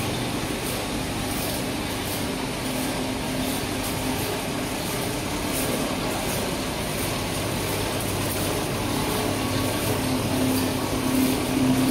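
Automatic disposable cutlery wrapping machine running: a steady mechanical hum with faint, regular ticking.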